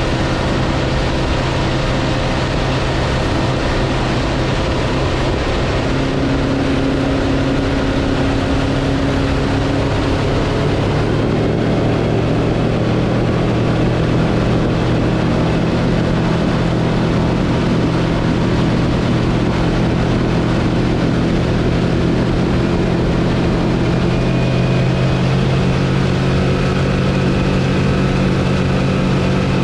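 Bass boat's outboard motor running steadily under way, its pitch shifting a little about eleven seconds in.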